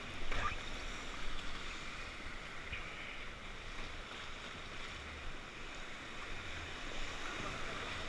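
Whitewater rapids rushing around an inflatable raft: a steady hiss of churning river water, with brief louder splashes near the start.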